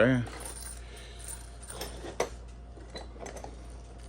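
Scattered small metallic clinks and taps as the lock, its keys and the picking tools are handled, about half a dozen in all, the sharpest a little over two seconds in.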